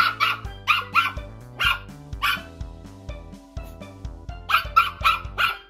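A small toy poodle barking in short, sharp barks, often in quick pairs. There is a pause of about two seconds midway, then a faster run of barks near the end, over background music.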